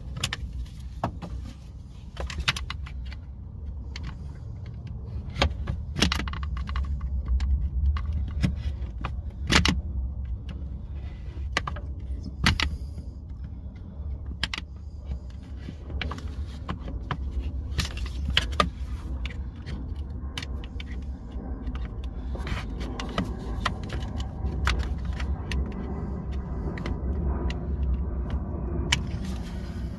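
Utility knife being pushed and stabbed through the plastic blower motor housing of a 2008 Pontiac G5 to cut it free: irregular sharp clicks and cracks of the plastic, with a low rumble beneath.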